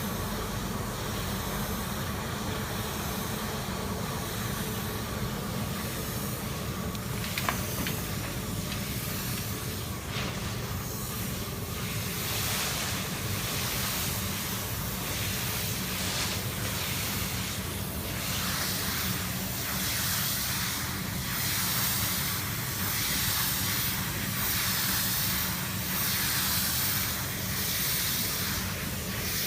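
Steady hiss over a low, even machine hum, with one sharp click about seven and a half seconds in; in the second half the hiss swells and fades roughly once a second.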